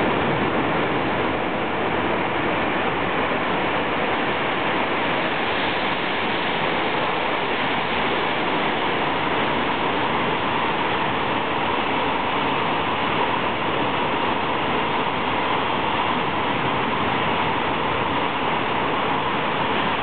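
Container freight train hauled by an EF66 electric locomotive running through an underground station: a steady, unbroken rumble of wheels and wagons on the rails, held in by the enclosed platform.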